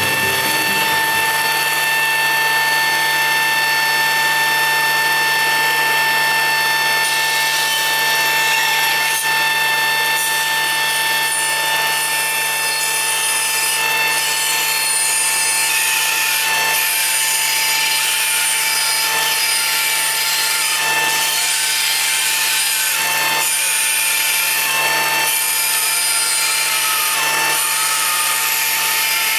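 Felder FB 510 band saw running with a steady whine as its blade cuts into a large dried wood burl. The sound turns rougher and uneven from about halfway.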